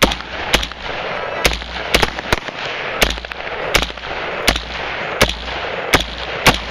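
AR-15 carbine fired in a steady string of single shots, about eleven in all, one every half to three-quarters of a second. The shots are very loud and close, with the rifle-mounted camera right beside the muzzle, and a continuous rough noise fills the gaps between them.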